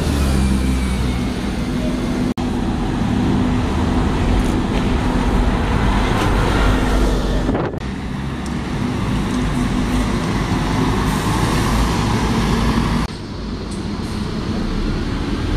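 Double-decker buses running through a city street junction, with engine hum and road traffic noise. The sound changes abruptly three times.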